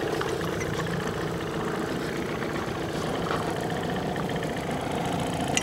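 Small boat's outboard motor idling steadily at low speed, with a few faint clicks.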